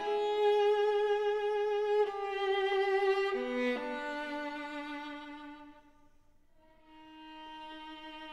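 Viola playing long held notes with vibrato, moving down in pitch; the sound fades nearly away about six seconds in, then a new held note enters.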